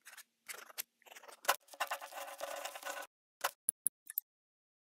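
Quill pen nib scratching on paper: a string of short scratches, one longer scratching stroke about two seconds in, then a few quick ticks.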